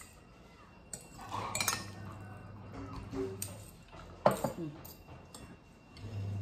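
Metal forks and spoons clinking and scraping against glass plates and a glass bowl of noodles during eating, with a few sharp clinks; the loudest comes a little after four seconds in.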